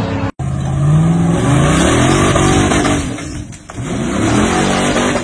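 An off-road vehicle's engine revving hard in repeated rising and falling surges, with a brief drop in level a little past halfway.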